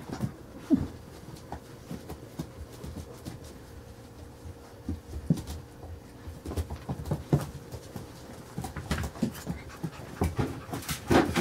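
Five-week-old Carolina Dog puppies playing and tussling: scattered short puppy vocal sounds among clicks and taps of paws and claws on a hard floor.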